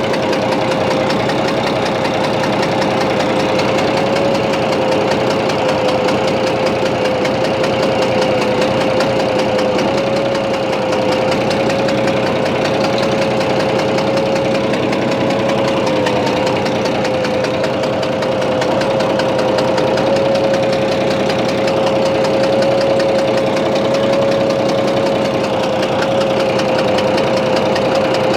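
A-01 six-cylinder diesel engine of a homemade Bison tractor running steadily, with a steady whine over the engine noise. It carries an extraneous noise that the owner traces to the third cylinder, whose injector the engine alone reacts to.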